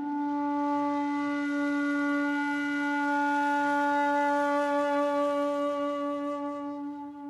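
Background music: a single long held note on a wind instrument, wavering slightly and growing softer near the end.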